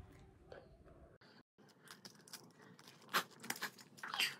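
Faint handling noise: a few soft clicks from about three seconds in and a short rustle near the end, against quiet room tone.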